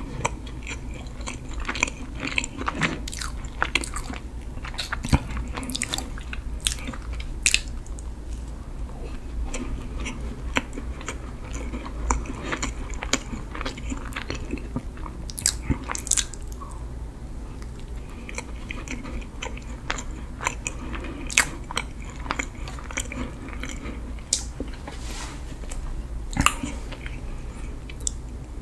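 Close-miked chewing of a Freddi Dark Dolcetto chocolate-coated sponge mini cake, with many sharp little crackles, busiest in the first eight seconds and scattered after.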